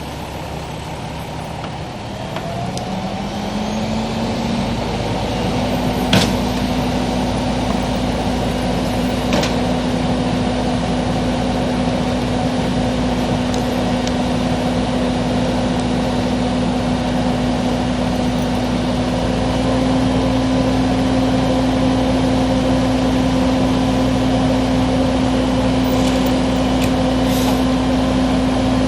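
An engine or motor winds up over a few seconds near the start to a steady pitched hum and holds there. Two sharp pops cut through it, the louder about six seconds in.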